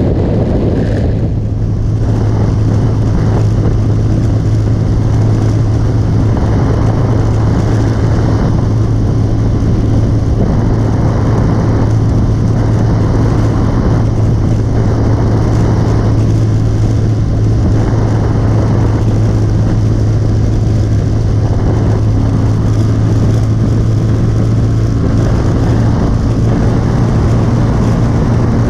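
Motorcycle engine running at a steady cruise, with a constant low hum and wind noise rushing over the microphone; the sound eases briefly about a second in, then holds steady.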